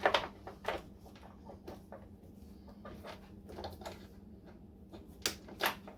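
Scattered sharp clicks and light knocks, the loudest two close together near the end: plastic cable ties (clips) on the washer's wiring being snipped with side cutters and the freed wires handled.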